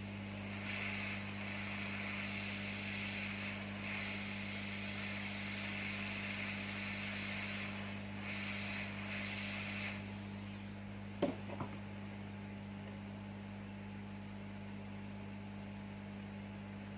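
Steady electrical mains hum from repair-bench equipment, with a hiss that runs in stretches over the first ten seconds, broken twice, and a single sharp click about eleven seconds in.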